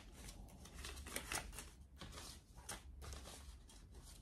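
US dollar bills rustling and crinkling as they are sorted and counted by hand, a string of irregular short, crisp rustles.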